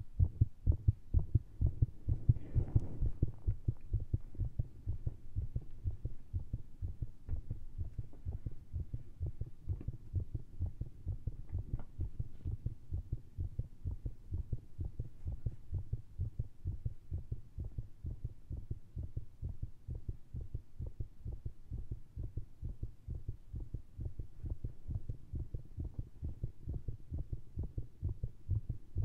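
A fast, irregular heartbeat heard through a stethoscope, low and muffled, racing after a large dose of caffeine and a standing push and vacuum manoeuvre. The beats are loudest in the first few seconds and settle a little softer after about five seconds, with a brief rustle about two and a half seconds in.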